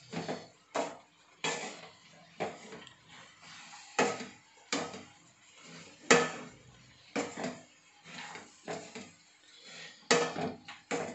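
A spatula scraping and tossing a thick, dry thoran mix of chopped raw banana, cowpeas, grated coconut and shallots around a non-stick frying pan, in quick irregular strokes about one to two a second.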